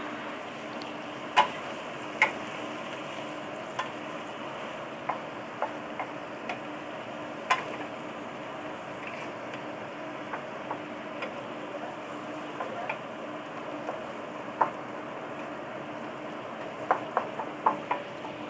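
Vegetables and squid sizzling as they stir-fry in a wok, with a wooden spatula knocking and scraping against the pan every second or so. Several quick knocks come in a row near the end.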